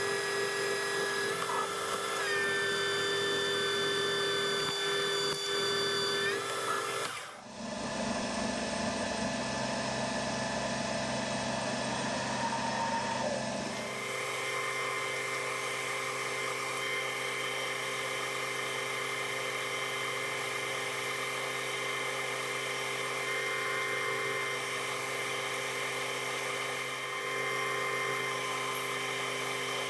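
Metal lathe running with a steady machine whine made of several tones, its sound changing abruptly about seven seconds in and again about fourteen seconds in. In the last half, a twist drill held in a tailstock drill chuck is boring into the spinning steel blank.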